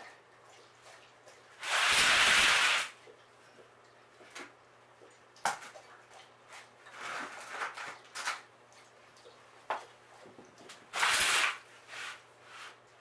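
Hand spray bottle misting plants. There are two loud sprays, each lasting about a second, at about two seconds and about eleven seconds in, and a few fainter sprays and rustles of handling in between.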